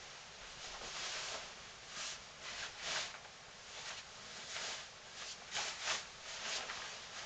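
Baggy cargo pants' fabric rustling as the wearer shifts and squats, in several brief swishes over a steady hiss.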